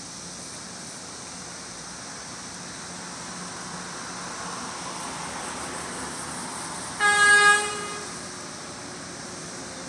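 One short single-tone horn blast from an approaching MTA light rail car, about a second long, sounded as a warning for the grade crossing. Steady road traffic runs underneath.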